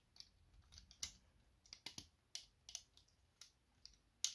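Faint, irregular clicks and taps of the hard plastic parts of an Iron Factory Steel Lucifer transforming figure as they are handled and tabbed together. The sharpest click comes just before the end.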